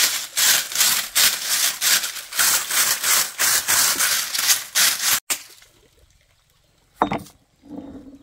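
Broom sweeping in steady rhythmic strokes, about two a second, which stop about five seconds in; a single sharp knock follows near the end.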